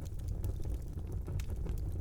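Wood fire burning in a fireplace: a steady low rumble from the flames with scattered crackles and sharp pops from the burning logs.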